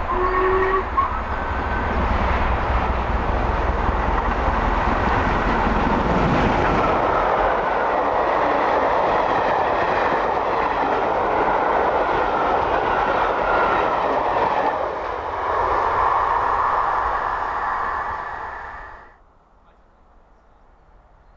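An LMS Black 5 two-cylinder 4-6-0 steam locomotive, No. 45212, passes at speed with its train. A short whistle note sounds at the very start. Then comes the loud rush of the engine going by, peaking about six seconds in, and the steady rumble and clatter of the coaches following. The sound falls away abruptly to faint background about three-quarters of a second before the end.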